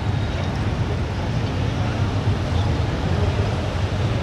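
Motorcycle engines running in a steady low rumble as bikes ride slowly past, with faint crowd chatter underneath.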